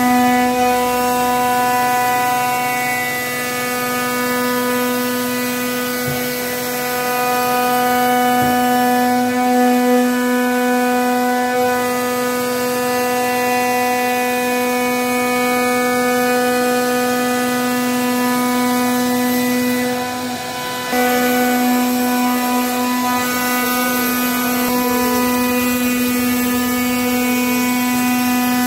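CNC router spindle running at a steady pitch while its bit cuts grooves into a wooden door panel. The sound dips briefly about twenty seconds in, then carries on at the same pitch.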